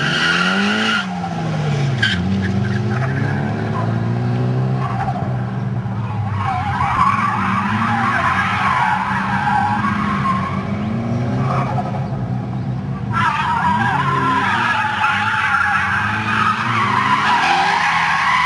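Nissan Silvia engines revving up and down over and over, with long, wavering tyre squeals as the cars slide hard through a cone course.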